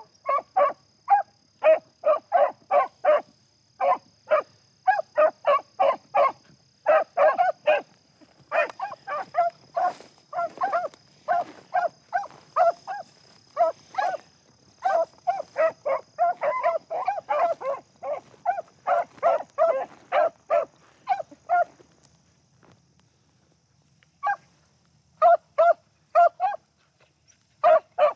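Beagles giving tongue while running a rabbit's track: rapid, overlapping barking, several barks a second, dropping away about 22 seconds in and starting up again near the end.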